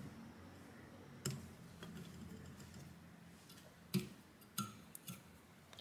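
Scattered light clicks and taps of plastic and small tools being handled as a replacement cooling fan is fitted into a graphics card's fan shroud. The sharpest tap comes about four seconds in, followed by a few lighter clicks.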